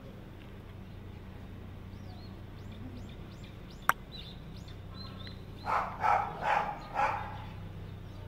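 A dog barks four times in quick succession, about two barks a second, in the second half, after a single sharp click. Small bird chirps come and go over a steady low hum.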